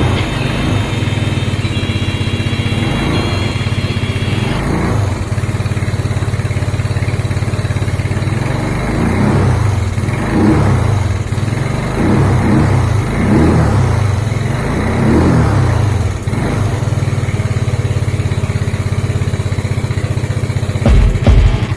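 Yamaha Mio Soul (2010) scooter's single-cylinder four-stroke engine running at idle on a post-restoration check-up start, with about five quick throttle blips in the middle before it settles back to idle.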